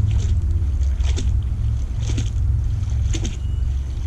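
A heavy old rusted chain pulled from the river being cleaned off, with a short swishing stroke about once a second, over a steady low rumble.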